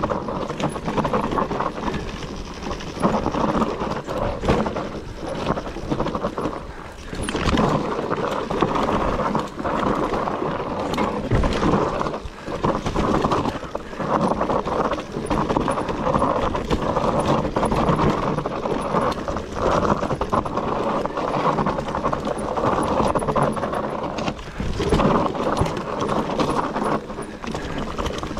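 Whyte E180RS electric mountain bike descending a dirt singletrack: knobbly tyres rumbling over soil and roots, with frequent irregular knocks and rattles from the bike as it hits bumps.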